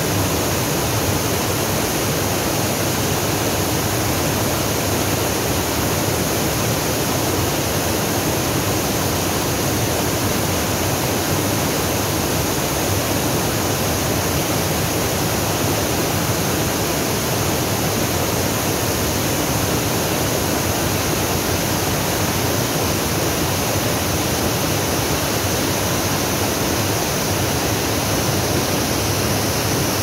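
Waterfall and the white-water rapids below it rushing over boulders: a steady, loud, unbroken rush of falling water.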